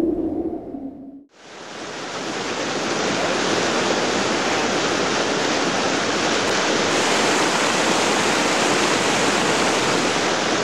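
A low hum fades out in the first second, then the steady rush of whitewater rapids fades in and holds.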